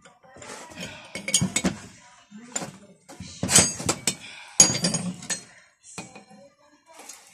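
Steel wrenches clinking and clanking against each other and the metal bench as they are handled, a series of sharp metal knocks with a short ring, the loudest about three and a half and five seconds in.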